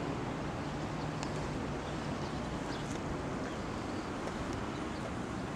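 Steady low rumble with wind noise on the microphone, with no distinct events standing out.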